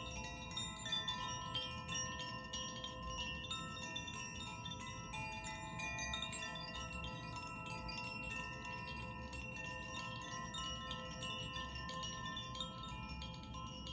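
Handheld tuned wind chimes being swayed so the clapper strikes the tuned rods again and again. The many overlapping tones ring on and blend into a continuous wash of sound.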